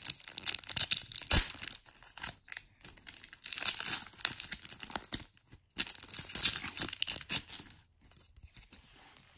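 Foil Pokémon booster pack wrapper being torn open and crinkled by hand, in a run of crackling rips and rustles that dies down near the end.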